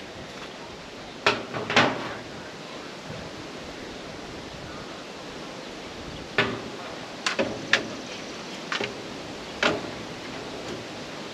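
Sharp, irregular knocks and clunks of a ribbed steel siding panel and a level knocking against the wood framing as the panel is set and plumbed: a pair a little after a second in, then a cluster of five or six a few seconds later, over steady outdoor hiss.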